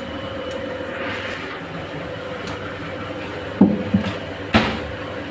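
Steady rumbling roar of a cooking burner under a large pot of water being brought to the boil, with a constant hum in it. Three sharp metal clanks come a little past halfway.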